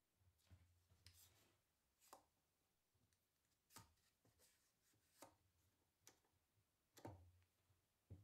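Scattered light knocks and clicks as plywood parts and one-handed bar clamps are set in place and tightened, about nine separate taps at irregular intervals.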